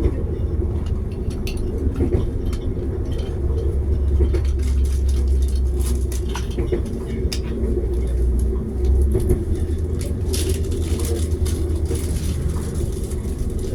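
Passenger train running, heard inside the carriage: a steady low rumble with scattered light clicks and rattles.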